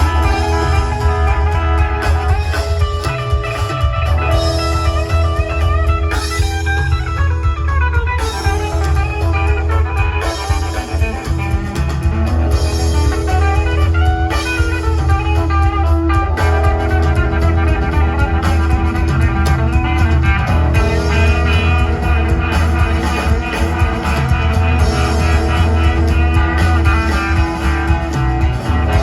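Live rock band with electric guitar and drums played loud through a large RCF line-array PA with subwoofers, the bass very heavy. About six seconds in, a guitar note slides down in pitch.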